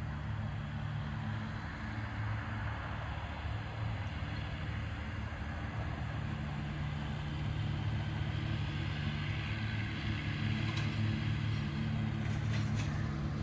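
Steady low mechanical hum of an unseen motor running, with an even hiss over it. It grows a little louder about two-thirds of the way through, and a few faint ticks come near the end.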